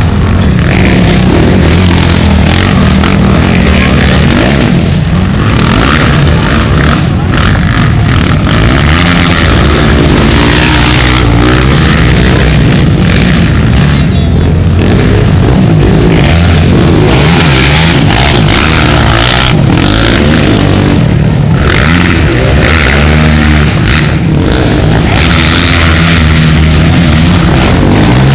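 Racing ATV engines revving hard, loud and continuous, their pitch rising and falling as the machines accelerate and shift.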